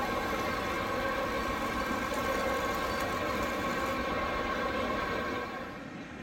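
Radio-controlled model hydraulic excavator working, its pump and motors giving a steady whine; the whine stops near the end.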